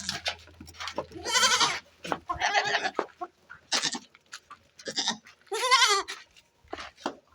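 Goats bleating: several wavering calls one after another, the loudest a little before the end.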